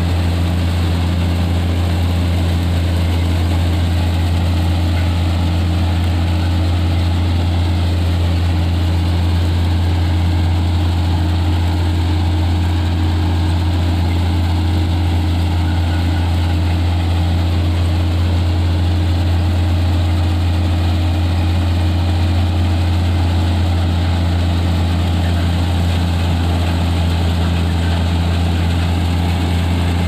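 Balkar B-525 combine harvester running steadily while cutting wheat: a constant low engine drone with the whirr of the reel and threshing machinery, unchanging throughout.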